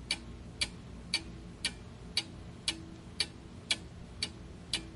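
Clock ticking sound effect counting down a quiz's answer time, an even tick about twice a second.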